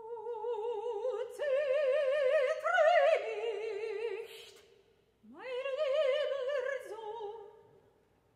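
A woman's voice singing in operatic style with a wide vibrato: two long held phrases, the second starting with an upward swoop from low.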